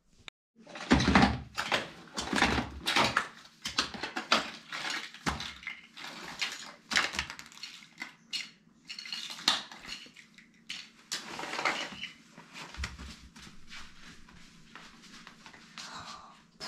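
Small plastic toys clattering and rattling against each other as a child rummages through a pile of them on the floor: many irregular sharp clicks and knocks, loudest in the first few seconds.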